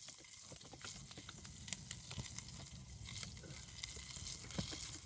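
Butter sizzling in a stainless steel pan with a wrap frying in it, with frequent sharp crackles and pops throughout.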